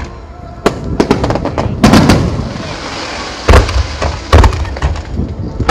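Aerial firework shells bursting in a rapid series of sharp bangs with deep booms, the loudest about two seconds in. A stretch of crackle follows it before more bangs near the end.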